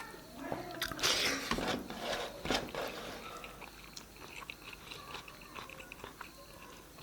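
A person eating: biting and chewing food, with the loudest bites about a second in and again near two and a half seconds, then quieter chewing.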